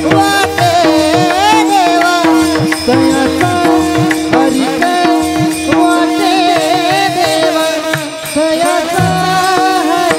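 Warkari devotional singing: a man sings a gliding, ornamented melody over a steady held tone, with mridang drum strokes and small brass hand cymbals (taal) keeping the rhythm.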